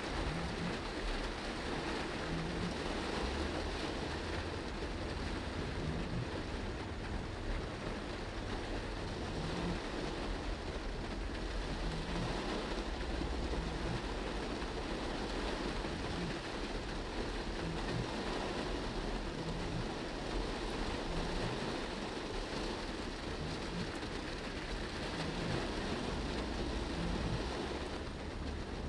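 Heavy rain on a moving car, heard from inside: a steady hiss of rain on the roof and windscreen mixed with the rumble of the car and its tyres on the wet road.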